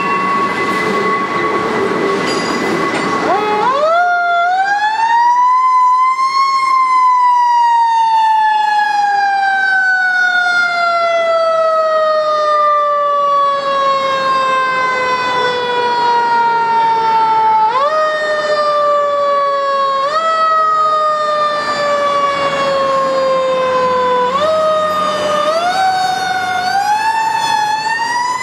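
A freight train rolls past for the first few seconds with a steady squeal. Then a fire truck's siren winds up, falls slowly over about ten seconds, and is given several short boosts that push its pitch back up, as the truck moves off after waiting with its siren off.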